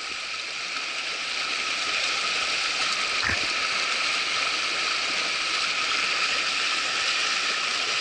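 Mountain stream rushing over rocks close to the microphone, a steady hiss of white water. One short knock sounds about three seconds in.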